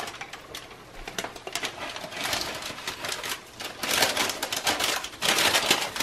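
Parchment paper crinkling and rustling in several bursts as dough wrapped in it is lifted and lowered into a Dutch oven, loudest near the end.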